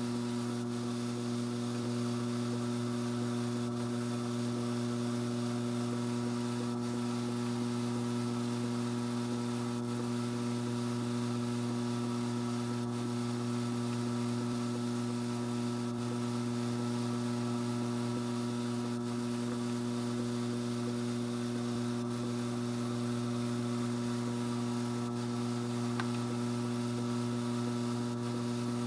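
Strauch Mad Batt'r electric drum carder running steadily at reduced speed, its motor giving an even hum, while short dog hair is fed in by hand.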